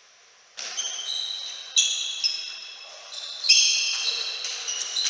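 Table tennis rally: the ball clicking sharply off the rackets and table, with short high squeaks that fit the players' shoes on the court floor. It starts suddenly about half a second in.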